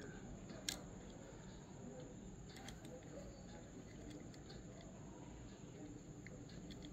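Faint handling noises: a few small clicks and light rubbing as a die-cast toy car is turned over in the hands, against quiet room hiss.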